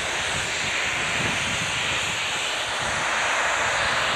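Steam locomotive passing close by, giving a steady rushing hiss with no distinct exhaust beats, easing slightly near the end.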